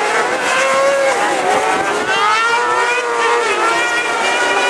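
Several autocross racing buggy engines revving hard together through a dirt corner. Their overlapping pitches rise and fall as the drivers accelerate and lift.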